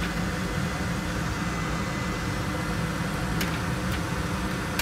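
Steady hum of fans and ventilation machinery, with a couple of faint clicks late on.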